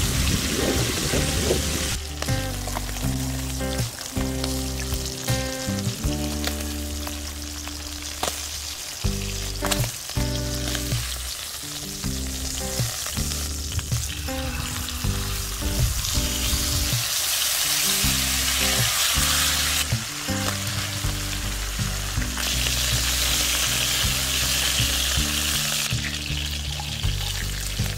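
Hot oil sizzling in a frying pan as soy-marinated pork chop slices sear, the hiss growing louder in the second half. There are occasional clicks of metal tongs against the pan.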